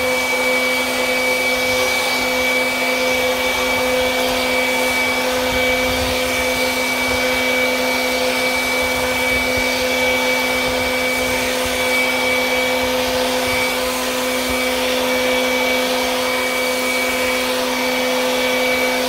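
Greenworks 40V cordless 150 mph leaf blower running at a steady speed: an even rush of air with a steady high whine from the fan.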